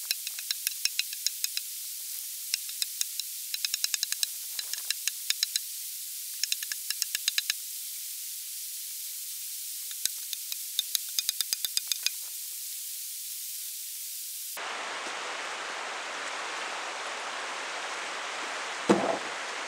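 Axe chopping into a log: sharp, thin chops in quick runs of several strokes over a steady hiss. About fifteen seconds in this gives way to wind and rustling leaves, with a single loud thump near the end.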